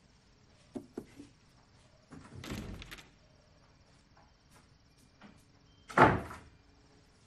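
Door sounds in a quiet house: a few light knocks about a second in, a longer scraping movement between two and three seconds, and a loud door bang about six seconds in, which is the loudest sound. Crickets chirp steadily in the background.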